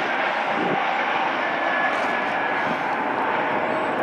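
Jet airliner engines in a steady rush, with a faint high whine.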